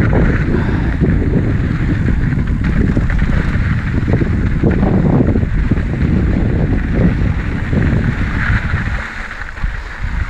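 Wind buffeting the microphone over the rumble and rattle of an Ibis Mojo HD4 mountain bike rolling on dirt trail, steady and loud, easing off slightly near the end.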